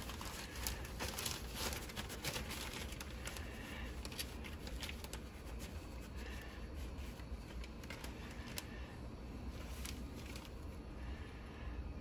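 Plastic zip-top bag of floured conch crinkling and rustling as it is handled, a run of small crackles and clicks that thins out toward the end.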